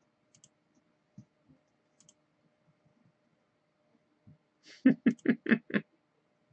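Faint computer mouse clicks, several of them in pairs, then near the end a quick run of five louder pulses, about four a second.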